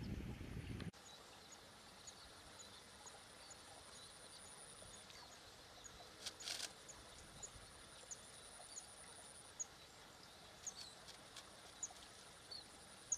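Faint outdoor ambience by the water: small birds chirping in short, repeated high notes over a thin, steady high insect whine that comes and goes. A low rumble in the first second cuts off abruptly, and a few soft clicks sound midway and near the end.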